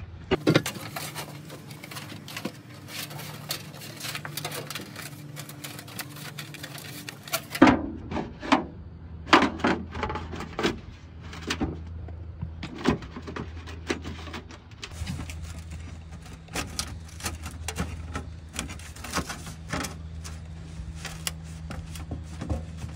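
Irregular crinkles, taps and knocks of soft aluminium roof flashing being bent and pressed by hand to the wave shape of clay roof tiles, over a steady low hum from about eight seconds in.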